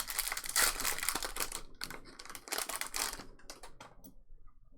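Trading cards and foil pack wrappers being handled: a dense run of crinkling and clicking for about three seconds, thinning to a few scattered clicks near the end.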